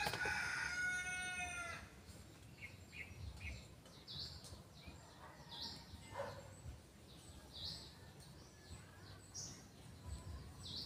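A rooster crows once, a call of about two seconds, then small birds chirp faintly now and then.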